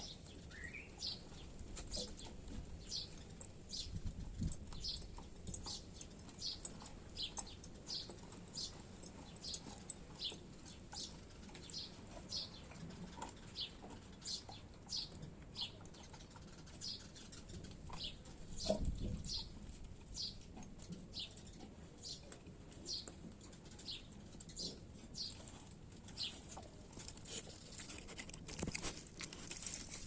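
A small bird chirping: short high chirps repeated steadily, about one and a half a second, with a couple of soft low thumps.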